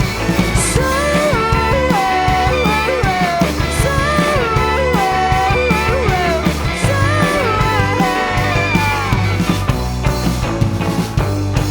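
Rock band playing an instrumental passage: a lead melody with sliding notes over a steady bass line and drums.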